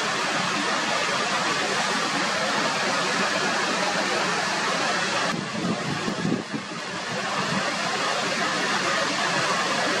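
Water sheeting down a wide, sloping rock face in an open cascade, a steady rushing splash. About halfway through, the sound briefly drops and thins, then comes back as before.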